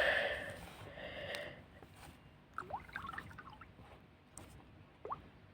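Samsung Galaxy S4 mini ringtone playing through the phone's speaker. A tone fades out over the first second, then come a few short rising blips, a cluster around the middle and one more near the end.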